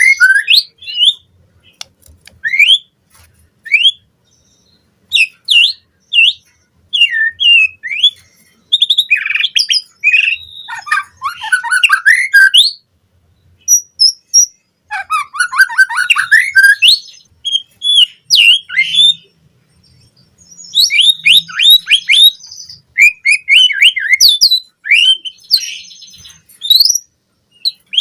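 White-rumped shama singing: loud bouts of rapid whistles, trills and chirps, with short pauses between phrases. The song is the varied, mimicry-rich kind kept as a tutor song for captive shamas.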